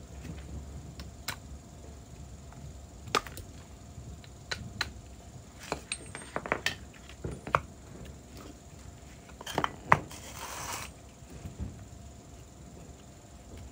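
Hand tools and metal parts clicking and knocking irregularly, with the loudest knock about ten seconds in, followed by a brief hiss.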